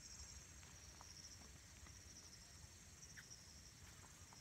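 Near silence, with faint, steady high-pitched chirring of insects in the grass.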